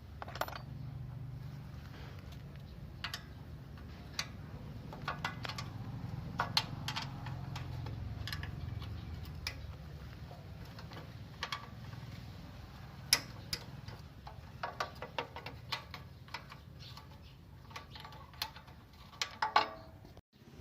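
Irregular light clicks and taps of tools and small parts being handled, over a steady low hum.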